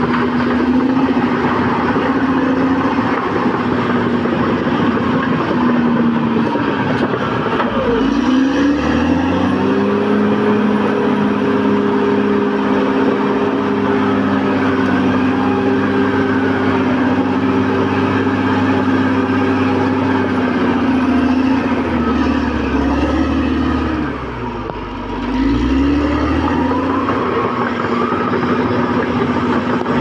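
Caterpillar D6R XL bulldozer's diesel engine running hard. Its pitch sags about a quarter of the way in, then climbs back and holds steady at a higher pitch. It falls and quietens briefly again after about twenty-four seconds, then revs back up near the end.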